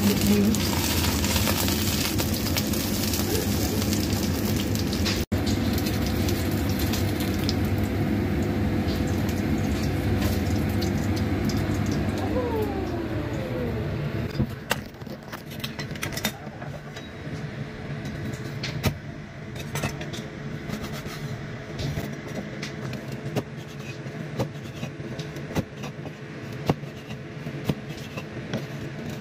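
Minced-fish patty sizzling in oil in a wok. The sizzle stops about halfway through, and irregular sharp knocks of a knife cutting through the patty onto a wooden cutting board follow.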